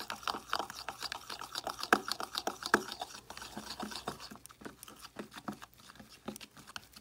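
Spatula stirring a thick, creamy metallic highlighter mix of mica powder and liquid in a clear plastic mixing cup: a rapid run of wet clicks and scrapes against the cup, fainter in the second half.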